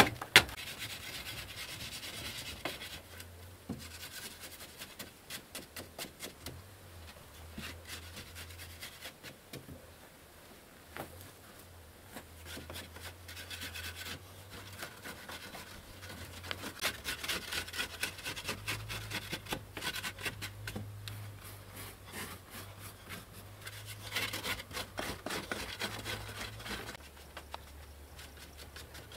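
Hand tool scraping and chipping at a hard dry earth wall: rasping scrapes, with a run of quick evenly spaced strikes a few seconds in and more bursts of scraping later.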